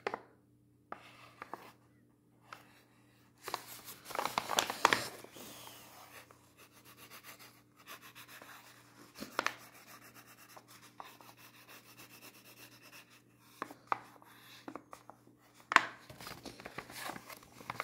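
Felt-tip marker rubbing and scratching on paper as an eye is drawn and coloured in, in short irregular strokes. There are a few louder rustles and taps from the paper being handled, the loudest about four to five seconds in.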